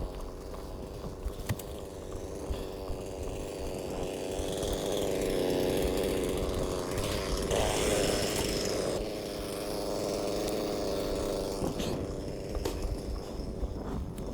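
Chainsaw running steadily while bucking a felled tree into lengths. It grows louder and harsher in the middle for a few seconds as it works through the wood, then eases off.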